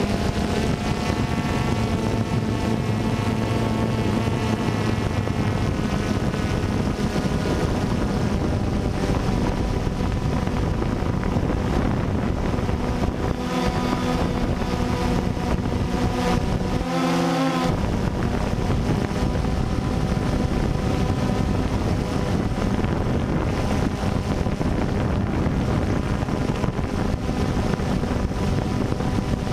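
DJI Phantom 2 quadcopter's electric motors and propellers running steadily, heard close up from the camera it carries, with wind noise on the microphone. The motor pitch shifts briefly about halfway through.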